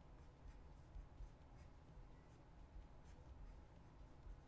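Faint scratching of handwriting on paper, with short separate strokes as kanji are written out by hand.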